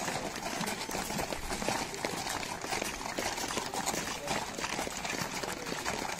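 Several horses walking on gravel, their hooves crunching in an irregular stream of short crackles, with faint voices of onlookers behind.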